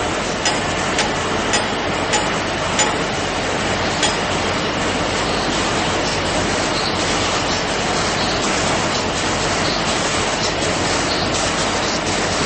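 Steady industrial machinery noise from a running mesh belt annealing furnace line, with about six sharp clicks over the first four seconds.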